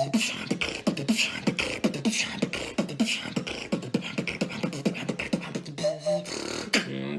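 Human beatboxing: a fast, steady beat of sharp percussive mouth sounds mixed with short pitched bass strokes that drop in pitch, several strokes a second.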